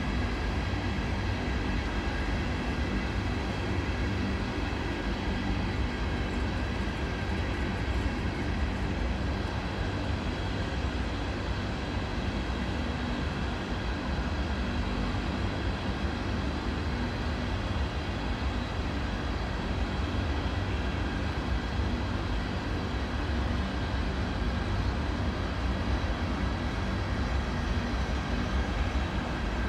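Norfolk Southern covered hopper cars rolling past steadily: a continuous rumble of freight car wheels on rail, with a faint steady high ringing over it.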